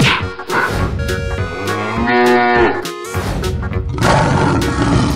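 A cow mooing once: one long arching call about two seconds in, over cartoon background music. A hissing burst of noise follows near the end.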